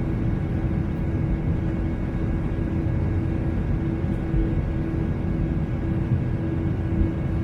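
Steady jet airliner cabin noise in flight: a low rushing rumble of engines and airflow with a constant hum running through it.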